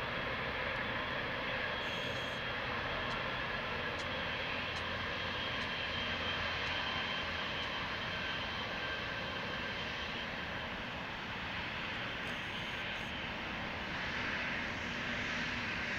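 Boeing 777-300ER's GE90 jet engines at take-off power, heard across the airfield as a steady rushing noise with a faint high whine.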